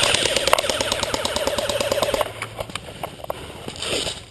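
Airsoft electric gun firing full-auto: rapid sharp clicks about a dozen a second over a steady motor whine, stopping about two seconds in. A brief rustling scrape comes near the end.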